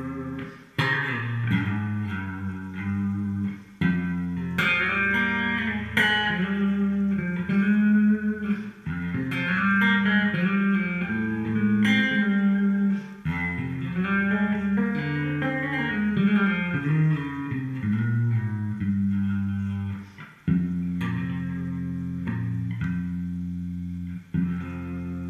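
Electric guitar playing a melodic lead line of single notes over steady low bass notes that change every few seconds.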